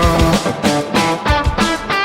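Rock band playing live: distorted electric guitar over bass and a steady drum beat.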